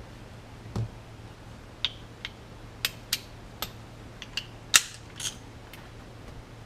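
Scattered, irregular sharp metallic clicks and taps from the steering shaft nut and hand tools being handled at the steering wheel hub, with a dull thump about a second in and the loudest click near the middle.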